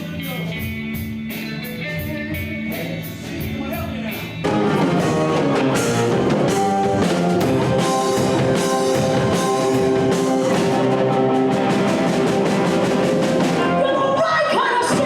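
Rock band playing, with drum kit and electric guitar. A lighter opening with steady cymbal ticks gives way about four seconds in to the full band coming in louder.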